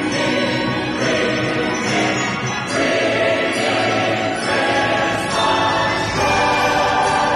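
Background music: a choir singing held chords that change about once a second.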